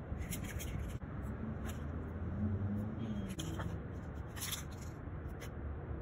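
Aerosol spray-paint can hissing in several short bursts as paint is sprayed onto a wall, over a steady low background rumble.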